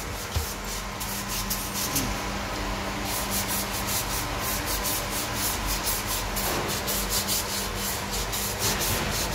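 Rear wheel hub and brake disc of a Ford Everest turned by hand. The parking brake shoes rub inside the disc's drum with a steady scraping that repeats several times a second.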